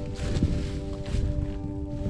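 Background music of sustained held notes, over rustling and a few footsteps on dry fallen leaves.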